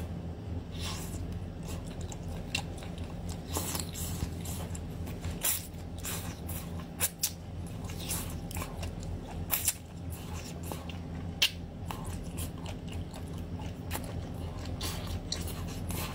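Close-miked eating of a whole octopus: wet lip smacks, sucking and bites on the tentacles in irregular clicks, a few sharper than the rest, over a steady low hum.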